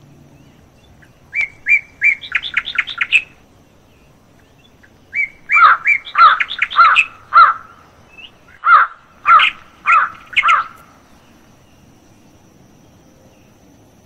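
A songbird singing loudly in two runs of quick repeated notes: a short run about a second and a half in, then a longer run from about five to eleven seconds in.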